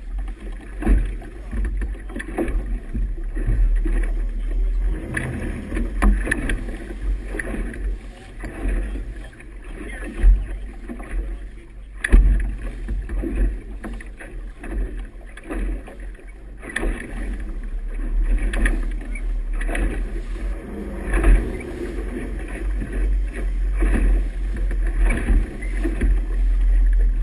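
Motorboat under way on choppy water: a steady low rumble with water rushing and slapping at the hull, and sharper thumps now and then.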